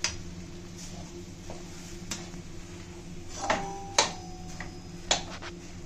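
Perforated steel spatula knocking and scraping against a steel kadhai while stirring a thick vegetable mash: a handful of irregular clinks, the loudest two about three and a half and four seconds in, ringing briefly. A steady low hum runs underneath.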